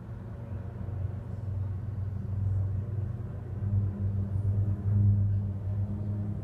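Low propeller drone of a formation of Pilatus PC-7 single-turboprop aircraft, growing steadily louder as they fly toward the listener.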